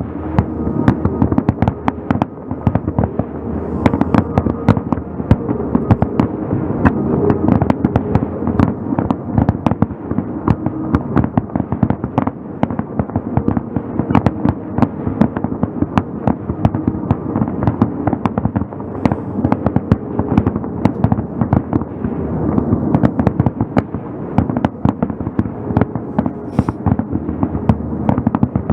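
Fireworks display: aerial shells bursting in a dense, continuous barrage, many sharp bangs a second over an unbroken rumble.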